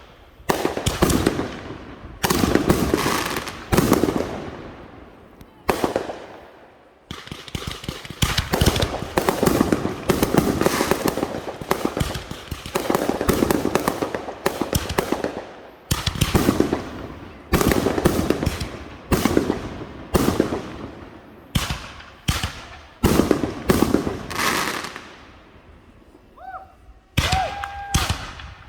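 Fireworks going off one after another: sharp bangs, roughly one or two a second, each trailing off into crackling. A short lull comes near the end, with a brief pitched tone in it.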